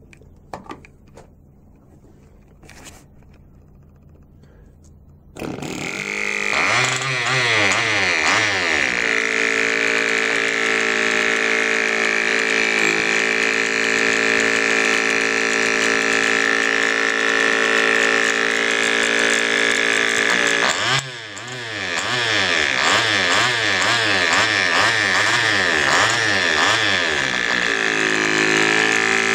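Cox .049 model diesel engine being spun up to start, a loud buzzing run whose pitch wobbles before settling, nearly catching without running properly. After a few quiet seconds of handling clicks it comes in, drops out briefly about two-thirds of the way through, then comes back.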